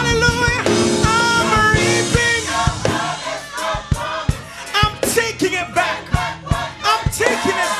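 Music: a singer holding notes with vibrato over a band with a regular drum beat and bass.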